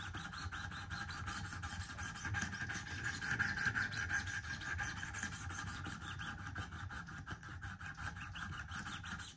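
Wicked Edge sharpening stone on its guide rod stroked back and forth along a recurve pocketknife's steel edge: a steady rapid scraping. It is a trial pass to see whether the stone reaches all the way back to the heel, and it stops abruptly at the end.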